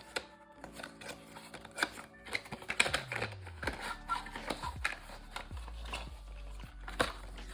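A box and its packaging being opened and handled by hand: a run of irregular clicks, taps and rustles, over soft background music.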